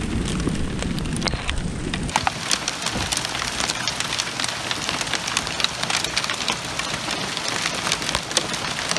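Small hailstones falling and pattering on hard surfaces, a dense, steady stream of sharp little ticks over a hiss. The ticking gets crisper and thicker about two seconds in.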